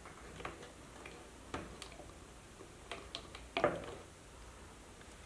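Push rivets being pushed through pre-drilled holes into a corner tab, with the parts being handled: a scattered series of light clicks and taps, the loudest about three and a half seconds in.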